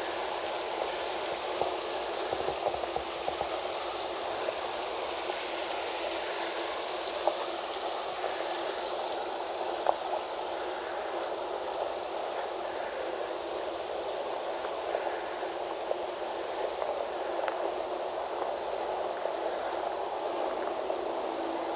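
Steady sound of running water feeding the garden's koi pond, with scattered small splashes.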